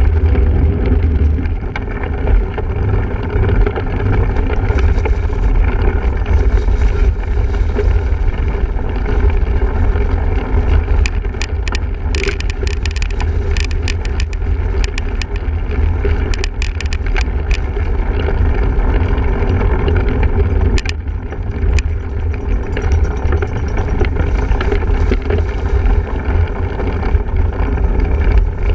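Wind rumbling on the microphone over the rattle of a single-speed cyclocross bike being ridden over rough ground, with a cluster of sharp clicks and knocks about halfway through.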